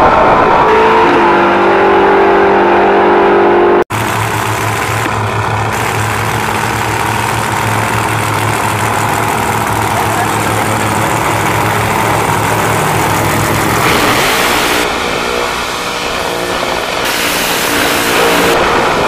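Drag cars under full throttle down the strip, their engine note stepping down in pitch as they pull away, then an abrupt cut. After it, a drag car's engine runs with a steady low rumble, then is revved hard into a burnout, its rear tyres spinning in smoke near the end.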